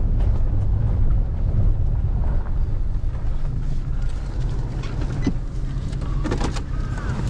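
Pickup truck driving on a dirt road, heard from inside the cab: a steady engine and tyre rumble, with a few short knocks or rattles about five and six and a half seconds in.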